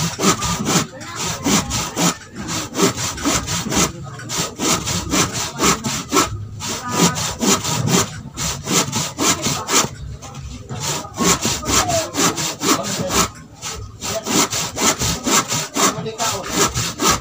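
Handsaw cutting through a wooden plank in steady back-and-forth strokes, about two a second, pausing briefly a few times.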